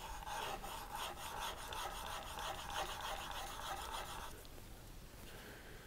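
Chisel being honed with a few quick back-and-forth passes on an extra-fine (about 1,200 grit) diamond sharpening plate: steel scraping on the diamond surface. The scraping stops about four seconds in.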